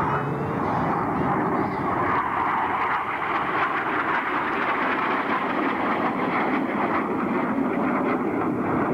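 Jet engine noise from the Red Arrows' BAE Hawk jets flying in formation overhead: a steady, even rush with no clear rise or fall.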